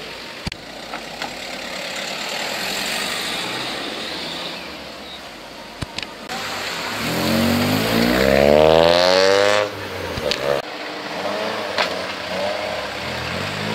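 A car accelerating hard away, its engine note rising steeply in pitch for about three seconds before it cuts off abruptly, over a background of other cars' engines. Near the end another car begins revving up.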